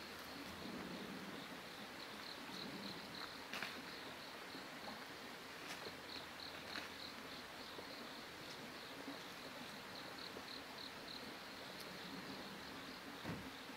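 An insect chirping steadily in a fast, even pulse, with a few faint rustles and soft clicks from a wild boar piglet rooting in the soil.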